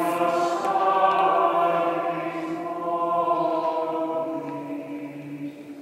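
Robed church choir singing long, sustained chant-like notes in several parts, the sound dying away near the end.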